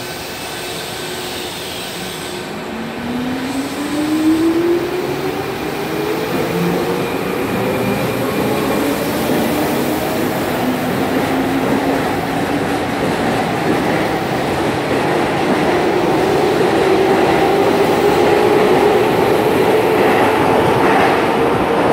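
Keihan 8000 series electric train pulling out of an underground station, its motor whine climbing in pitch as it accelerates. Wheel and rail running noise grows louder as the cars pass.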